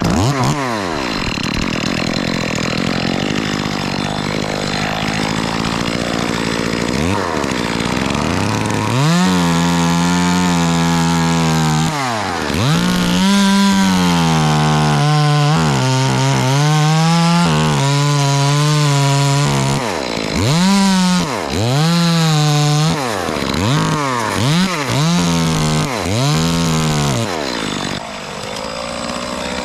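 Two-stroke chainsaw running, revved repeatedly to full throttle and held for a few seconds at a time before dropping back, with a run of quick throttle blips near the end.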